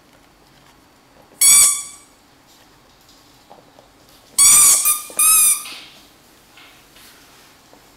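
A dog's squeaky toy squeaking as a small dog chews it: one squeak about a second and a half in, then two more in quick succession a few seconds later.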